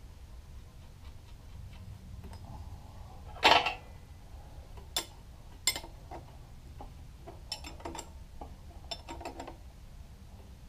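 Metal hand tools clinking against the change gears and gearbox housing of a Felder S308 power feeder: one loud clattering knock about a third of the way in, then a few sharp clicks and a run of light metal ticks as a combination wrench is set on a gear nut. A low steady hum sits underneath.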